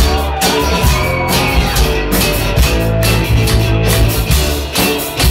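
Live rock band playing loudly, with a steady drum beat under sustained instrument tones.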